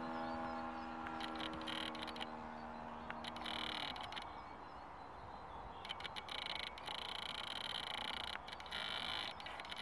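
ASP 52 FS four-stroke model-plane engine at full throttle, a steady drone that fades away about four seconds in as the RC plane flies off into the distance. After that only background noise remains, with a high-pitched chirring that keeps breaking off and starting again.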